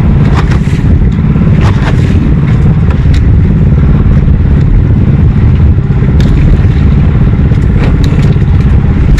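Small engine running steadily and close, a loud low drone, with a few short knocks and clatters over it.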